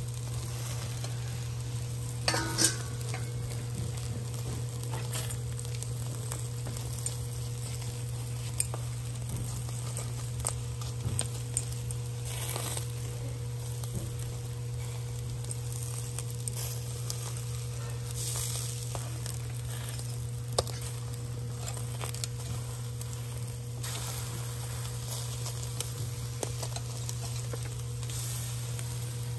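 Pork belly and chicken leg quarters sizzling on a grill, with scattered crackles and pops from the dripping fat. There is a short louder knock about two seconds in, over a steady low hum.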